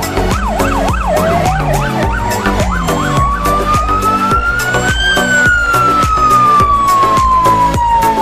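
An electronic siren going from a fast yelp to a slow wail: a quick up-and-down warble for about the first second, then a long rise in pitch for about four seconds and a slow fall. Music with a steady beat plays under it.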